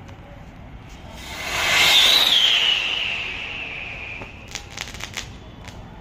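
Diwali whistling rocket launching with a loud rush, then a whistle that falls steadily in pitch as it climbs. About four and a half seconds in comes a quick string of sharp crackling pops from the chatar patar crackling compound fitted in place of its cap.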